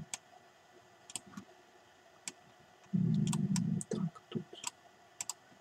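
Computer mouse clicks: a handful of separate sharp clicks spread out, as text is selected in a document. About three seconds in comes a short, low murmur of a man's voice, the loudest sound.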